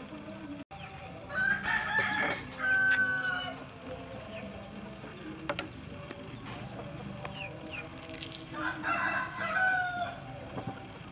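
A rooster crowing twice, about seven seconds apart, each crow lasting around two seconds.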